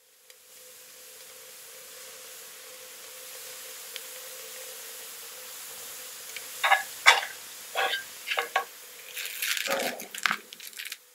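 Buttered bread frying in a nonstick pan: a steady sizzling hiss that builds over the first few seconds, then sharp crackles and pops from about halfway through, thickest near the end.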